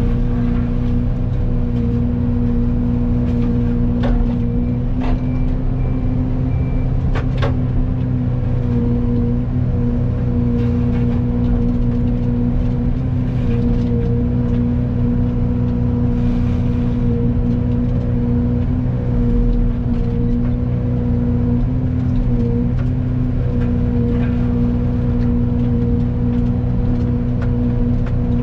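Excavator engine running steadily under load, driving a Fecon forestry mulcher head through brush. Its pitch sags slightly now and then, and a few sharp knocks come about 4, 5 and 7 seconds in.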